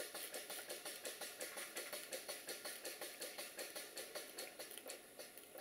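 Stuart Models Victoria model steam engine running on steam, its newly retimed slide valve giving an even, rhythmic chuff-and-tick about five times a second. The beats grow fainter near the end.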